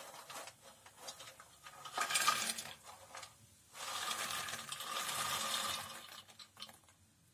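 Dried lotus seeds (phool makhana) poured from a steel plate into a metal kadai: a short rattle about two seconds in, then a longer stretch of seeds tumbling and pattering onto the pan from about four to six seconds.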